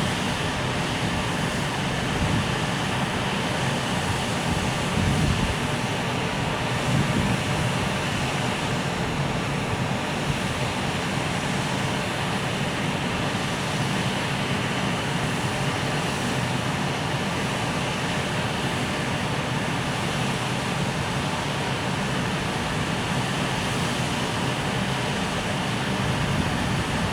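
Container freight train hauled by an EF510 electric locomotive, giving a steady low rumble and hum.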